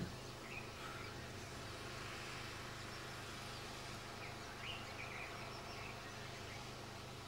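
Faint, short bird chirps: one about half a second in, another near a second, and a cluster about five seconds in. Underneath runs a steady low hum and hiss.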